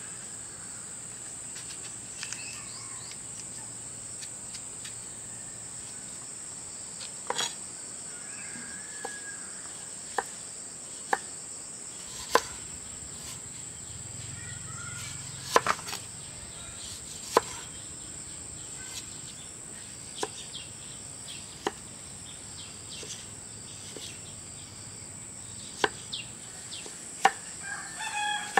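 Insects, most likely crickets, keeping up a steady high-pitched drone, broken by about a dozen irregular sharp knocks and clicks. Near the end, a few short chicken clucks.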